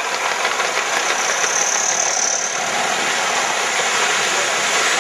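Gauge 1 (45 mm) live-steam model train running past: a steady mechanical rattle of the wagons on the track, with a hiss. A brief, higher hiss comes about two seconds in.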